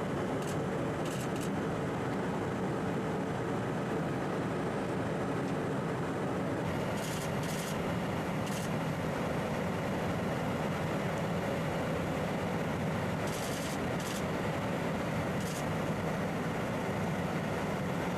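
Steady engine drone with rushing noise, as from a boat or aircraft under way, broken by a few brief high clicks in small groups.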